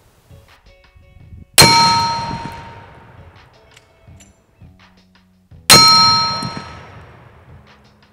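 Bullets from a Tankgewehr anti-tank rifle striking 3/4-inch steel target plates twice, about four seconds apart. Each hit is a sharp metallic clang that rings on and fades over about a second and a half. The bullets are brass and copper rather than steel-cored.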